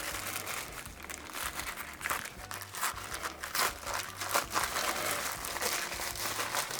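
Packaging crinkling and crackling in irregular bursts as a mail package is opened.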